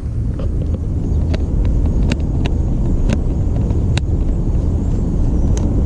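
A steady low rumble, with light, irregular clicks of a hand tool working a small bolt loose on a steering wheel's control panel.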